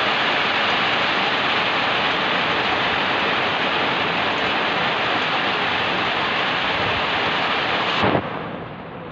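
Heavy downpour of rain hissing steadily. About eight seconds in, a sharp knock is heard and the rain sound drops off suddenly to a much quieter, duller hiss.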